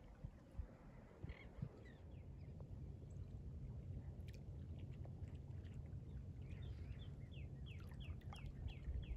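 A bird calling: a few chirps about a second in, then a quick run of about eight short falling notes near the end, over a low steady rumble.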